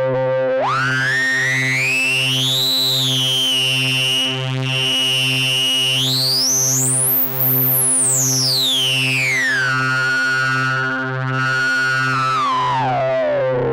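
Korg Kronos 2 synthesizer playing a sustained drone patch: a low note pulses at an even slow rate under a held chord, while a bright tone glides up to a very high peak about seven seconds in, then slides back down and falls low near the end.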